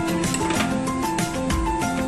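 Music: a melody of held notes stepping in pitch over a steady beat.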